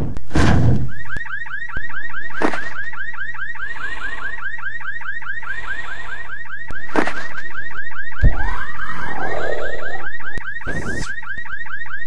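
Car alarm sounding: a fast, evenly repeating rising chirp that keeps going, set off by the car being hit. Several sharp hits land over it, and a louder low sound rises and falls about eight seconds in.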